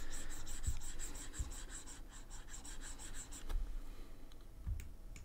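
Stylus pen scratching across a graphics drawing tablet in quick back-and-forth colouring strokes, about five or six a second. The strokes stop about three and a half seconds in, with a few soft knocks of the pen or hand on the pad.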